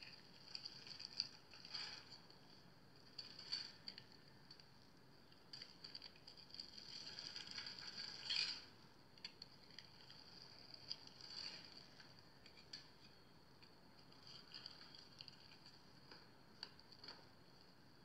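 A knife cutting through a pre-scored bar of dry soap, the small cubes crumbling off with faint, crisp crackling and scraping. The sounds come in short runs a second or two apart, the loudest about eight seconds in.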